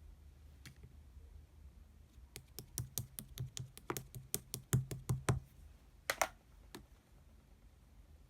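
A quick run of sharp taps or clicks, about a dozen over three seconds, then a brief double click and one last tap, over a steady low hum.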